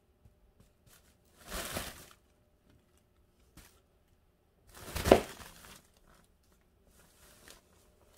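Crinkly fabric of a cat tunnel rustling as a ragdoll cat moves around inside it. It comes in two bursts about three seconds apart, the second louder, with a fainter rustle near the end.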